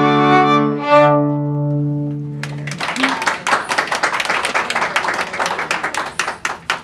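A string quartet plays the last chords of a piece, the final chord held and fading out; then people clap for the rest of the time, the clapping thinning out near the end.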